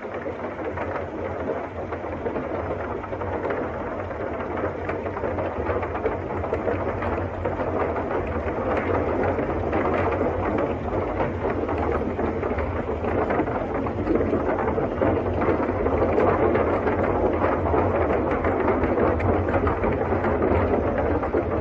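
Old open touring car driving across a steel truss bridge: a steady rumble with a dense rattle and clatter of the wheels on the bridge deck, growing louder over the first two-thirds.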